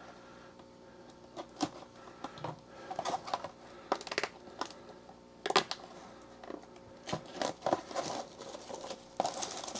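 Plastic shrink wrap on a cardboard trading-card hobby box crinkling and tearing as it is handled and peeled off, in scattered short crackles and clicks with a few louder bursts.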